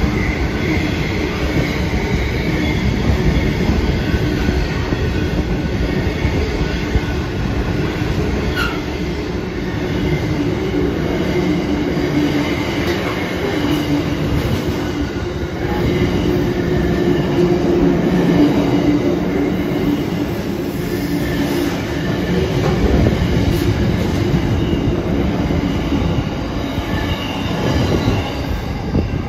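Freight train wagons, loaded container flats and then steel-plate wagons, rolling steadily past at speed: a continuous rumble and clatter of steel wheels on the rails, with thin steady whining tones from the wheels over it.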